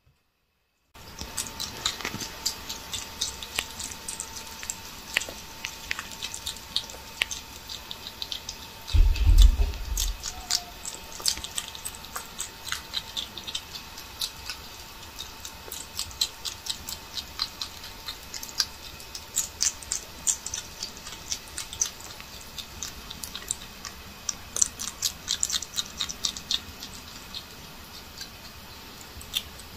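Lesser bush babies feeding at a food bowl: many irregular small clicks and crackles, with one low thump about nine seconds in.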